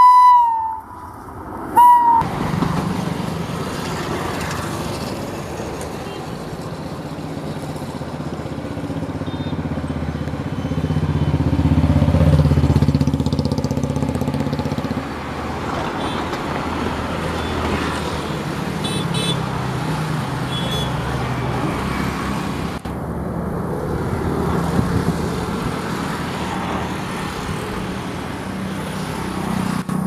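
WAP-5 electric locomotive's shrill horn cutting off just as it begins, then one short toot about two seconds in. After that comes the steady rumble of the express train running past, loudest about twelve seconds in.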